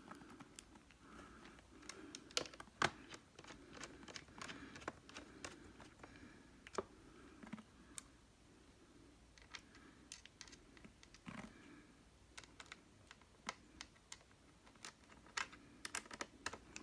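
Scattered faint clicks and light taps at uneven spacing, a few sharper than the rest: a small screwdriver and screw working against the plastic underside of a Compaq Presario CQ57 laptop as a case screw is driven back in.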